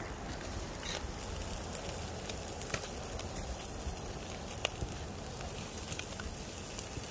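Trout sizzling on a small charcoal grill, a steady hiss with scattered sharp pops and crackles from the hot coals, over a low rumble.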